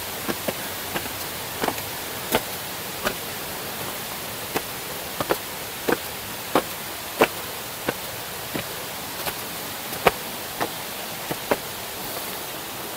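Footsteps climbing stone steps: irregular sharp taps, roughly one or two a second, over a steady rushing hiss.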